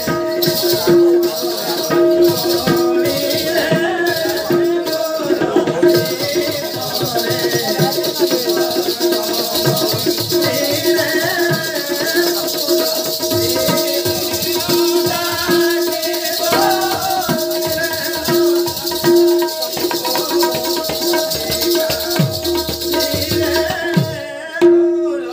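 Live folk dance music: a barrel drum beaten over a held drone tone, with the jingle of ankle bells and rattles that becomes a continuous high shimmer about six seconds in.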